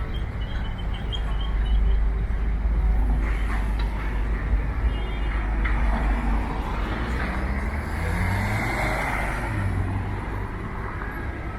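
City street traffic over a steady low rumble; about two-thirds of the way through, a vehicle passes with its engine pitch rising as it accelerates.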